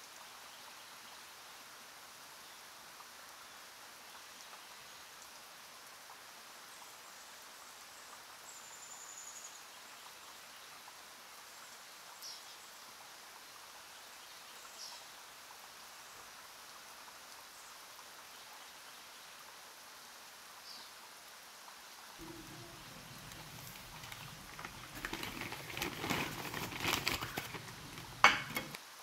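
Faint steady hiss with a few light clicks of a metal spoon against a ceramic bowl as spiced chicken wings are mixed. Near the end a clear plastic zip-lock bag crinkles loudly in bursts, ending in a sharp snap.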